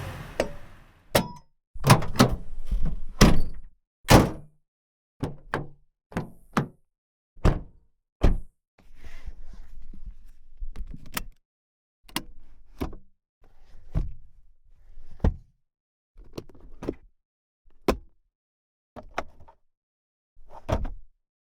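A run of separate clicks, latches and heavy thunks from a 2020 Toyota Tacoma pickup's body, like doors and latches being opened and shut, about twenty in all with short gaps between them.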